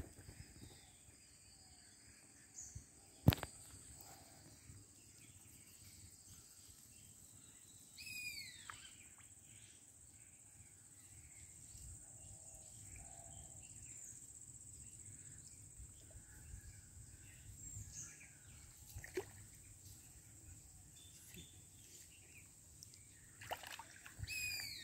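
Quiet outdoor river ambience with a steady high-pitched hiss, a few short descending bird calls about eight seconds in and again near the end, and one sharp click about three seconds in.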